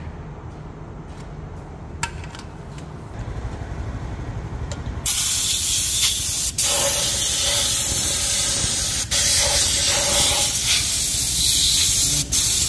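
A low rumble with a single click, then about five seconds in a loud steady hiss starts suddenly and runs on, cut off for a moment three times.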